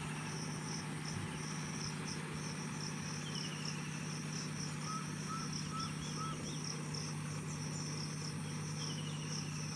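John Deere 5050D tractor's three-cylinder diesel engine running steadily as it pulls a rotavator through a flooded field, under steady pulsing insect chirping. A few short bird chirps come in here and there.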